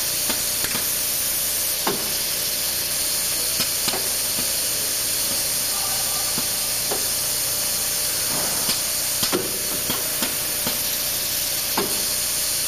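Needle bearing insert machine at work: a steady hiss with light clicks and knocks from its tooling, irregularly spaced about one a second.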